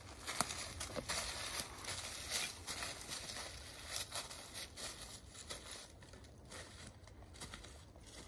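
Footsteps crunching and rustling through dry fallen leaves: irregular crackly crunches, quieter in the second half.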